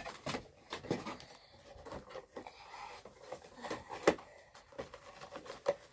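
Objects being handled and put away: scattered taps, light knocks and rustles, with one sharper knock about four seconds in.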